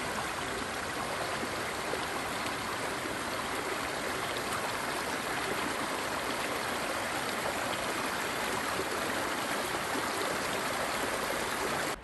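A small creek running over rocks: a steady babbling of flowing water.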